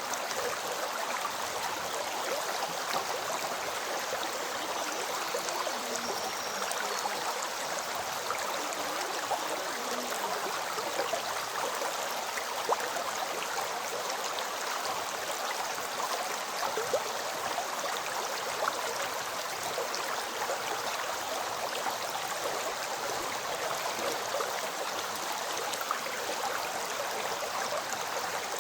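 River water flowing in a steady rush, with small splashes and gurgles scattered through it.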